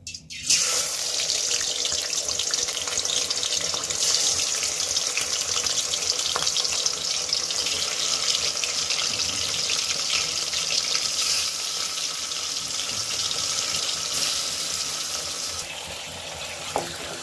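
Raw chicken pieces sizzling in hot oil in a karahi. A loud, steady frying hiss starts suddenly about half a second in as the first pieces go into the oil, and eases slightly near the end.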